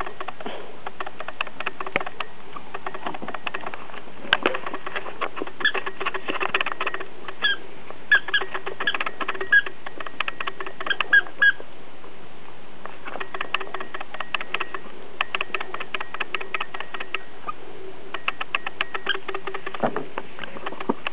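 Two dogs at play: a run of quick clicks and snuffling, broken by clusters of short, high squeaks.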